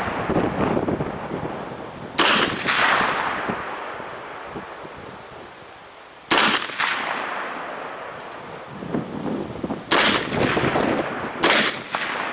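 Four single gunshots, fired slowly a few seconds apart: two evenly spaced, then two closer together near the end. Each shot is a sharp crack followed by a ringing echo that dies away.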